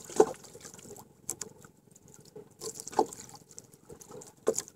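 Water lapping against the hull of a small outrigger boat, with a few short, sharp slaps or knocks, the loudest just after the start.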